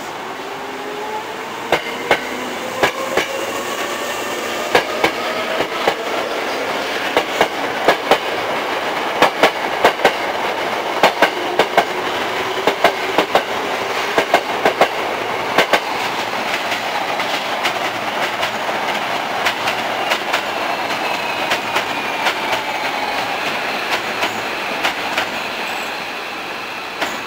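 Hankyu 6000-series field-chopper electric train pulling out: the traction motor whine rises steadily in pitch as it gathers speed, over a quickening run of sharp clacks from the wheels crossing rail joints. Later a high whine falls slowly in pitch.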